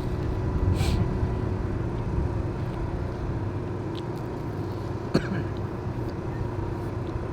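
Steady low hum of a car engine idling. A short sharp click comes a little after five seconds in.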